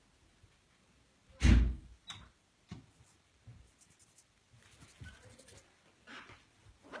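A single short, loud thump about a second and a half in, among faint rustles and soft taps.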